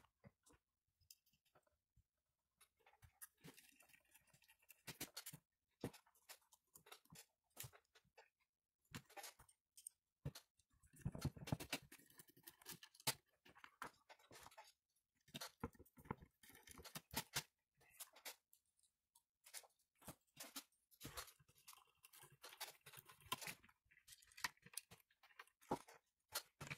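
Faint handling noise: scattered clicks and rustling as gloved hands fit the plastic parts of a small 3D printer's print-head carriage together.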